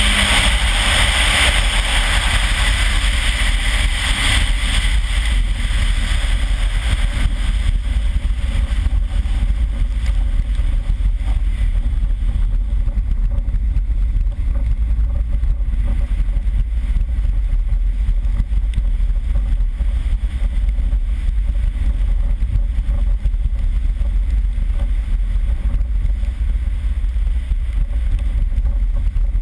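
Toyota RAV4 Turbo driving at speed over wet ice and slush, heard through an outside-mounted camera's microphone as a steady heavy wind rumble. A hiss of water and slush spray is strongest over the first several seconds and then dies down.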